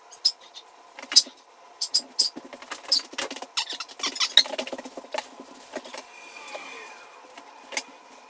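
Irregular light clicks and taps as a small paint pail and paintbrush are handled and carried across the room, then the brush goes onto the door trim.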